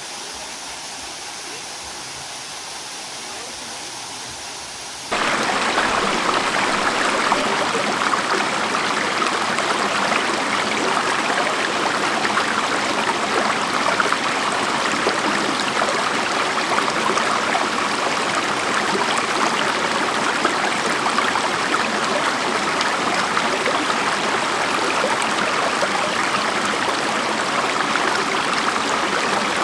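Steady rushing water of falls and a creek, a dense unbroken hiss; it jumps suddenly louder about five seconds in and then holds steady.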